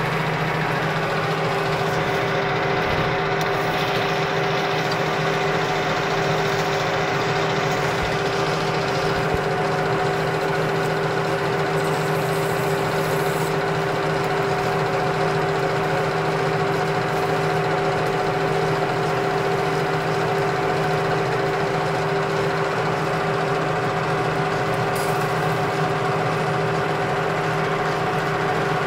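Metal lathe running steadily, its motor and gear train giving an even hum with a constant whine.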